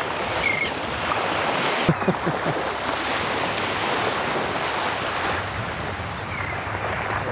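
Small surf waves washing steadily onto a sandy beach, a continuous rush.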